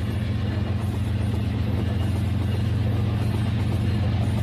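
Battery-powered toy train's motor and wheels running on plastic track: a steady low hum with a fast, fine clatter, growing slightly louder as the train comes closer.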